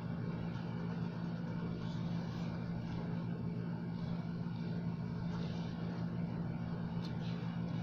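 A steady low mechanical hum, unchanging throughout, with faint rustling of tissue paper being unwrapped from a succulent.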